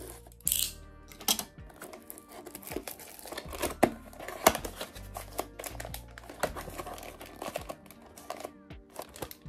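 Plastic shrink-wrap on a cardboard cookie box being slit with a cutter and crinkled as it is peeled off, with a brief sharp rasp about half a second in and scattered clicks and rustles of the box being handled, over background music.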